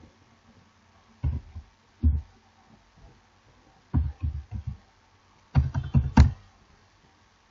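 Computer keyboard keys being struck as a password is typed, in short irregular bursts of a few heavy taps each, about four bursts with pauses between.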